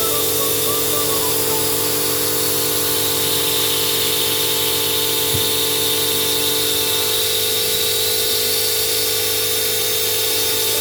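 DIY CNC router's spindle running at a steady high speed, a constant whine with several fixed tones over a hiss, as it mills 5083 aluminium.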